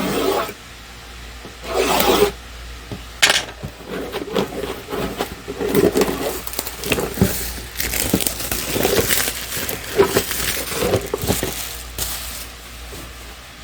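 Shrink-wrap torn and crinkled off a sealed plastic model kit box, then the cardboard box opened and the parts inside handled, with rustling, scraping and a few sharp clicks.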